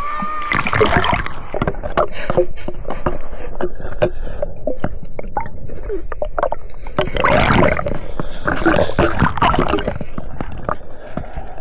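Water sloshing and gurgling, with many short clicks and knocks scattered through it.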